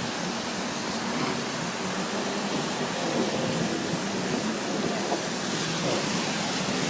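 Steady rush of floodwater running through a flooded wadi.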